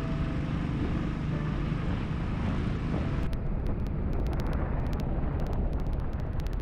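Royal Enfield Thunderbird 350 motorcycle cruising at highway speed: the single-cylinder engine's steady exhaust beat under wind rushing over the microphone, with sharp crackles from about three seconds in.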